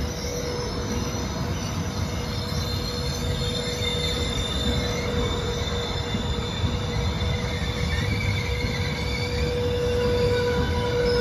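Trenitalia Intercity passenger coaches rolling past along the platform: a dense rumble of wheels on rail with a steady squealing tone over it, growing slightly louder towards the end.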